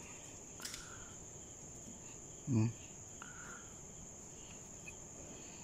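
Crickets trilling steadily in one unbroken high-pitched tone, with a faint click about half a second in.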